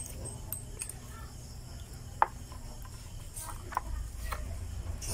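Small metallic clicks and taps as a pneumatic foot brake valve is reassembled by hand, its spring-loaded piston pushed into the aluminium housing, with one sharp click about two seconds in and a few more near the end.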